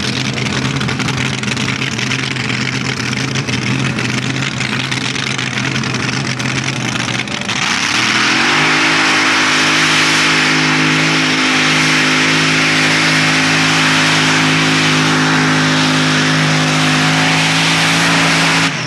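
Engine of a modified pulling tractor with open individual exhaust pipes running at a steady low speed, then revving up about seven and a half seconds in and held at a high, steady speed, louder, until it cuts off suddenly near the end.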